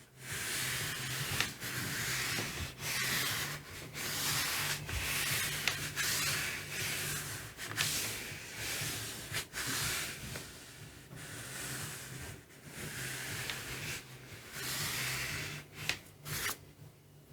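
Rubbing strokes across the back of a sheet of watercolor paper pressed onto an inked gel printing plate, burnishing it hard to lift the print. It is a repeated dry scratchy rub, about one stroke a second, that stops shortly before the end.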